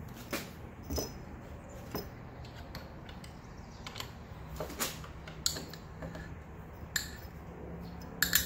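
Steel bottom bracket parts and hand tools clinking and tapping against each other as they are handled, a sharp metallic clink every second or so, with a couple of louder ones near the end.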